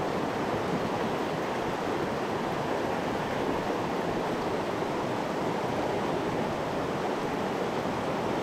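Small rocky trout stream flowing over stones in a riffle: a steady, even rush of water.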